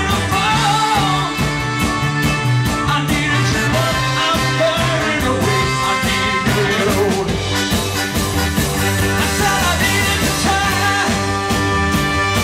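Live band playing a soul-rock song: a horn section with trumpet and trombone over electric guitars, bass, drums and keyboard, with the singer's vocals on top.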